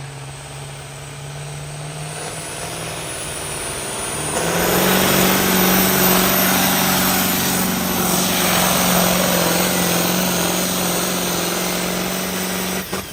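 Turbocharged pulling engine under full load on a pull run, its revs climbing over the first few seconds, then louder and steady at high revs from about four seconds in, cutting off suddenly near the end.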